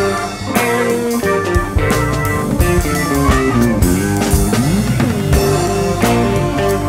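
Live rock band playing an instrumental passage: electric guitar and keyboard over a drum kit and bass, with no singing.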